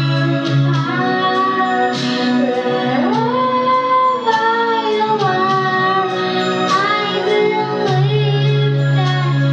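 A young girl singing into a microphone over instrumental accompaniment, holding long notes, with a sliding rise to a high held note about three seconds in.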